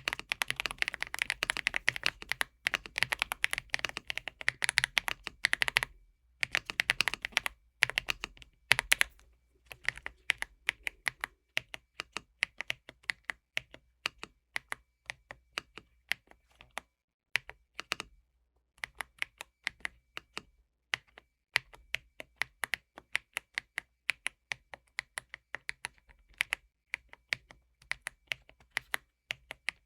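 Typing on a Redragon K745 Pro mechanical keyboard fitted with Cherry-profile keycaps: a fast, dense run of key clicks at first, then steadier, more spaced-out keystrokes with a few brief pauses.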